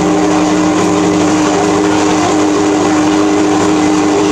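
Metal-cutting band saw running steadily, its blade sawing through a 40 mm steel rod: a loud steady hum with one strong tone over a hiss of the cut.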